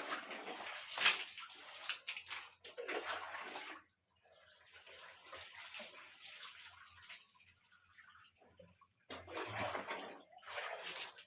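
Water poured over long hair to rinse out shampoo, splashing and running off. It comes in two heavier spells, at the start and again near the end, with softer trickling and splashing between.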